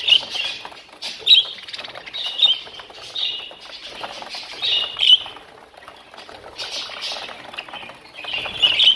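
A flock of budgerigars chattering, with sharp squawks and chirps every second or so, the loudest cluster near the end.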